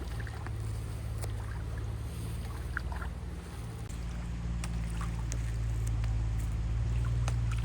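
Engine running steadily, with scattered light clicks and knocks over it; the engine gets louder about halfway through.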